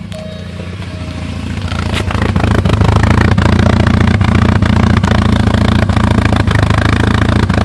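Porsche 944's inline-four engine idling roughly, with an uneven knock or stumble about twice a second. It grows louder over the first three seconds, then holds steady. The owner does not know what is causing the rough idle.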